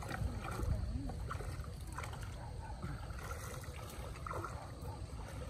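Shallow muddy water sloshing and splashing as people wade through it, dragging a seine net and pushing a pole through the water.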